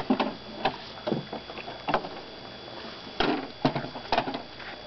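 Oars splashing in the water and knocking against a small rowboat in about eight short, unevenly spaced strokes, the irregular rhythm of someone learning to row.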